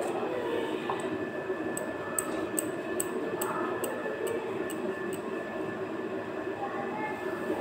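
Kitchen range hood fan running steadily with a faint whine. Light, regular ticks come about two to three times a second through the middle.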